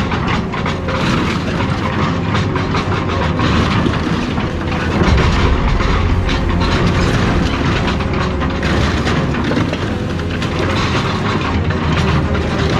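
Heavy machinery tearing up scrap cars: continuous clanking and crunching of metal over a steady low engine rumble.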